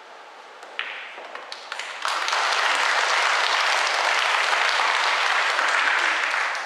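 A pool cue strikes the ball with a sharp click, followed by a few light ball knocks. Then comes loud audience applause, about four seconds long, for the pot that wins the rack, tapering off at the end.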